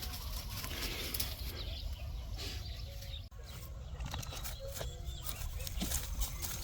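Faint animal calls outdoors: a few short, scattered calls and small clicks over a low, steady rumble.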